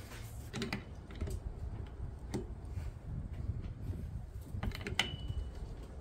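Irregular light clicks and clatter of hand tools being handled on a workbench, with one short ringing metal clink about five seconds in.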